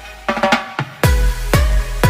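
Electronic dance music: a quick drum fill, then a heavy bass and a steady drum beat drop in about a second in.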